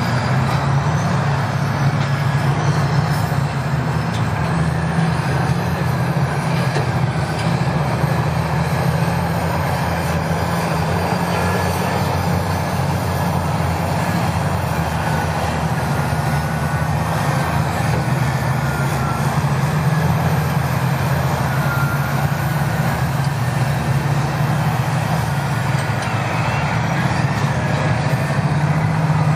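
Heavy diesel earthmoving machines running steadily: a crawler dozer and Caterpillar 657 scrapers working under load, a constant low engine drone with faint wavering whines above it.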